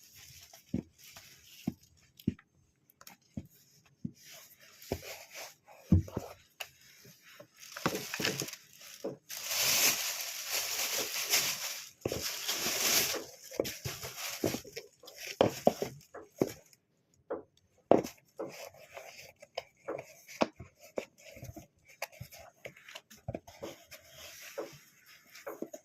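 Parcel packaging being handled and opened: scattered clicks and rustles, with a longer tearing sound of about three seconds near the middle.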